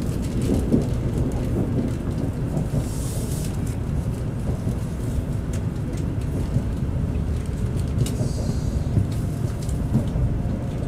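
Steady low rumble of a Shinkansen train running on the rails, heard from inside a passenger car as it moves out of a station, with scattered faint clicks and two brief hisses.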